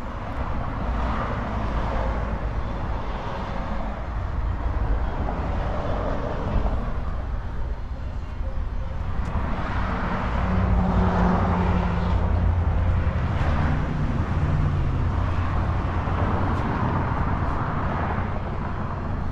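Steady low vehicle rumble, with a low engine hum that comes in about ten seconds in and fades out by about fifteen seconds.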